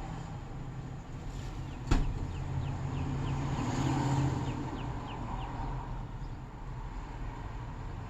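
Steady low rumble of a running vehicle, with one sharp click about two seconds in followed by a quick run of light ticks and a brief swell in loudness.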